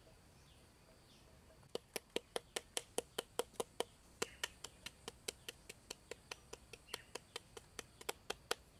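Rapid, evenly spaced sharp knocks, about four or five a second, starting a little under two seconds in: a hand-held pounder striking lumps of grey material in a clay pot. Faint bird chirps in the background.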